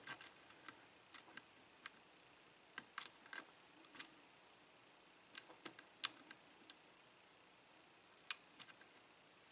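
Faint, irregular small metallic clicks and ticks of a hook pick and tension wrench working the pin stacks in a 5-pin Kwikset lock cylinder during single-pin picking, a few clicks bunched together about three seconds in, around six seconds, and near the end. The lock holds a mix of serrated and spool security pins.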